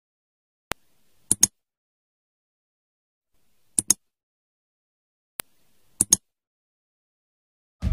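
Mouse-click sound effects over silence: a single click, two double clicks, another single click and a last double click, spaced a second or two apart. Music starts right at the end.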